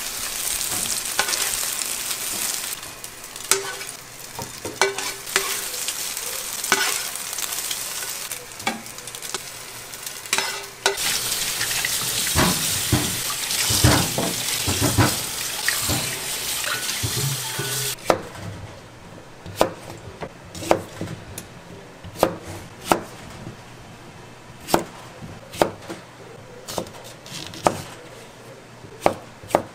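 Food sizzling in a hot pan while it is stirred, with the knock and scrape of a utensil against the pan. About 18 seconds in the sizzling stops, and a knife starts chopping on a cutting board, about one stroke a second, coming faster near the end.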